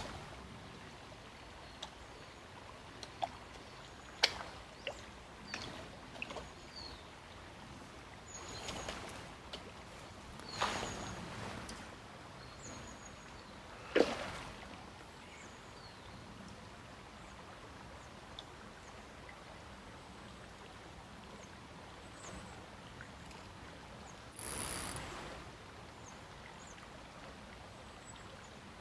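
Quiet canal-bank ambience: a faint, steady rush of flowing water, with a few faint bird chirps. Scattered sharp clicks and knocks come through it, the loudest about halfway through, along with a couple of brief rustles.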